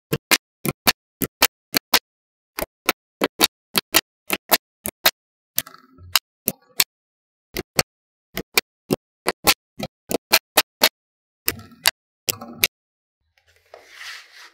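Small magnetic balls snapping together one at a time as they are placed into the build: sharp clicks, about three a second, in runs with short pauses. A soft brushing sound near the end.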